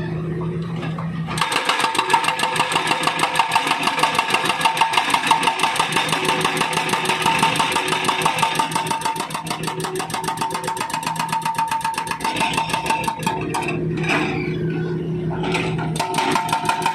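Hydraulic breaker on a Volvo wheeled excavator hammering through thick asphalt in rapid, evenly spaced blows. The hammering starts about a second in, stops briefly near the end and then starts again, with the excavator's diesel engine running under it.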